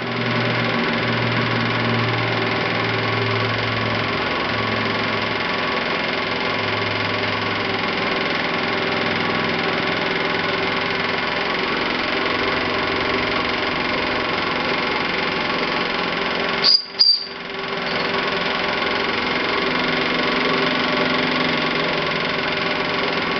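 Meccano model steam donkey pump running under steam: the small engine, chain drive and gearing turn over with a steady mechanical whirr and hum. The sound drops out briefly with a sharp click about seventeen seconds in.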